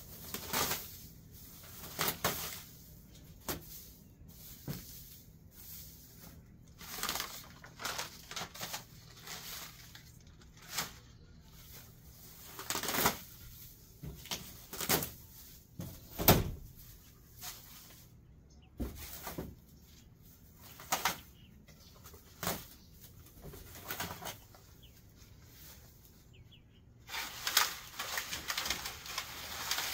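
Dry grass and weeds rustling and crackling as they are pulled up and handled by gloved hands, in irregular bursts, with a denser run of rustling near the end.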